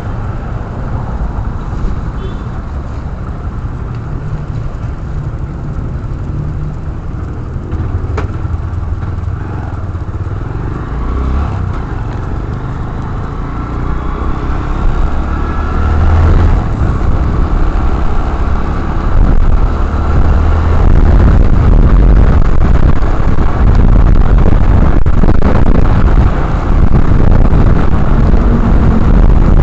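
Motorcycle riding in traffic heard through a helmet camera's microphone: a steady engine and road rumble with wind buffeting the mic, getting much louder about halfway through as the bike picks up speed.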